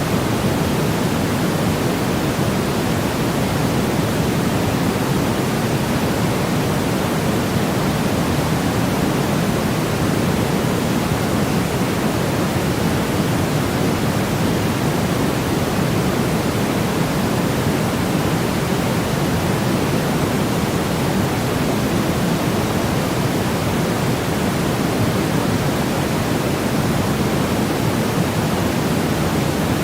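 Steady, unchanging noise track: an even rushing hiss with more weight in the low-mid range than the top, which puts it closer to pink noise than to flat white noise.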